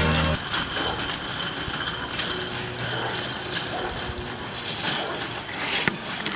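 Wire shopping cart rattling and clattering steadily as it is pushed over cracked asphalt.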